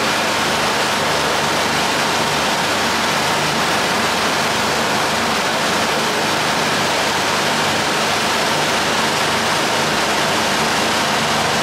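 A small fishing boat running at speed: the wake churning and spraying behind the stern, a steady rush of water over a low, even engine hum.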